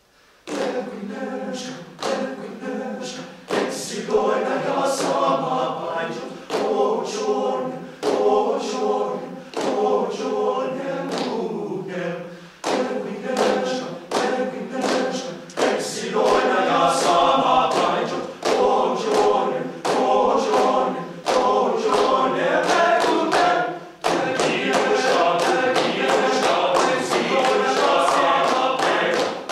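Men's ensemble singing a cappella in close harmony, keeping time with rhythmic hand claps. The singing starts about half a second in, dips briefly around the middle and again near the end, and the claps come thicker in the last few seconds.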